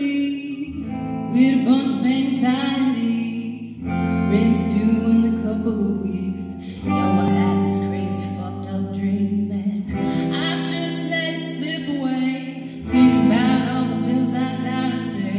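Live band playing a song: voices singing over electric guitar and bass guitar, the bass notes changing about every three seconds.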